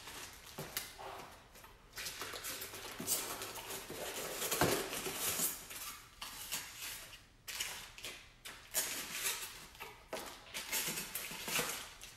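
Packaging being handled while unboxing: a paper sheet crinkling and a white styrofoam insert being pulled from a cardboard box. The sound is irregular rustling and scraping with a few light knocks.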